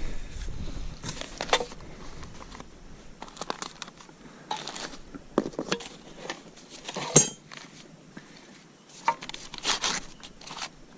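Sawmill parts and packing material being handled out of a box: crinkling and rustling, with scattered clicks and light knocks and one sharper knock about two-thirds of the way through.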